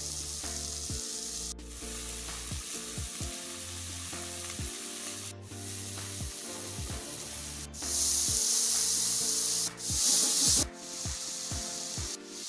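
Bell peppers and greens sizzling as they stir-fry in a hot wok, a steady hiss that grows louder for a few seconds past the middle. Background music with low sustained notes runs underneath, and the sound breaks off sharply for an instant several times.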